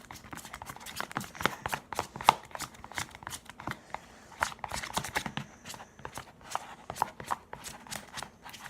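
Slime being stirred and worked by hand, giving irregular wet clicks and pops, several a second.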